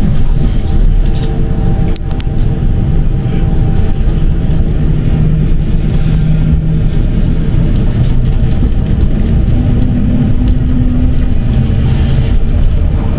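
Tram running along its rails: a steady low rumble of wheels on track with a motor hum over it, and a few sharp clicks.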